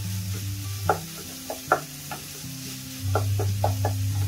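A spatula stirring and scraping minced mutton frying in a pan, with short scrapes and taps against the pan over a light sizzle. Soft background music with low held notes runs underneath.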